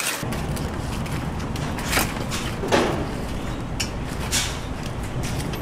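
Metal tongs clinking and scraping on a wire rack as pieces of fried chicken are moved, several sharp clinks spread over a steady low rumble.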